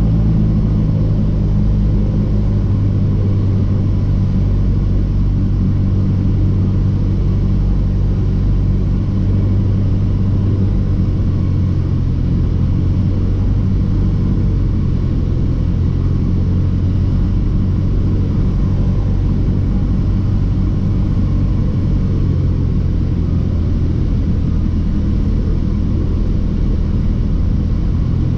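Cessna 172's piston engine and propeller droning steadily, heard from inside the cockpit while the aircraft descends on approach to land.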